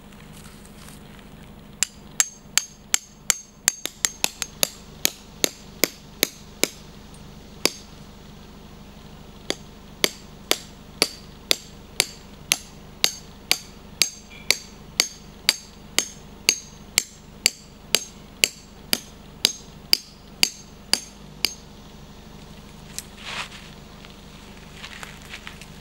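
A hammer driving metal tent pegs into the ground: steady blows about two a second, each with a short metallic ring, in two runs with a brief pause about eight seconds in. The hammering stops a few seconds before the end, followed by a couple of softer rustles.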